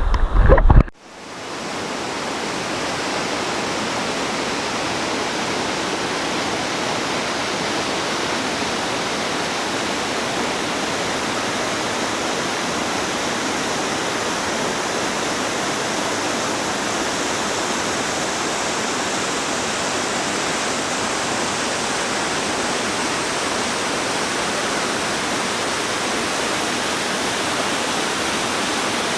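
Waterfall pouring into a pond, a steady rushing hiss that fades up about a second in and then holds even.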